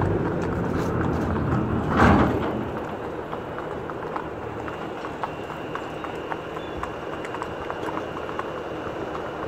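Racehorses walking on a sand track, hooves clip-clopping in an uneven scatter of soft thuds as several horses pass. A short loud burst of noise comes about two seconds in.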